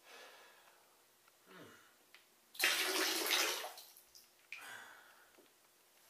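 Water poured from a glass into another glass of water over a bathtub, splashing loudly for about a second a little before the middle, with a few shorter, quieter sounds around it.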